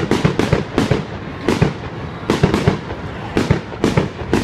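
Fireworks going off in a quick, irregular run of sharp bangs, several a second, each with a short echoing tail.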